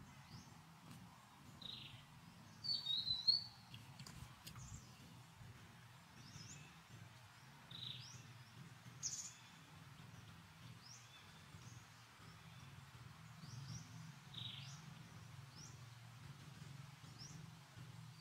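Small birds chirping: short high chirps every second or two, with a louder warbling run of notes about three seconds in, over a faint steady low hum.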